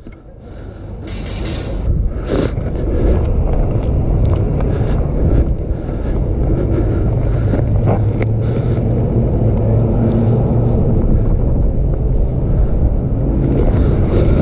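A steady low engine-like rumble that swells up over the first two seconds and then holds.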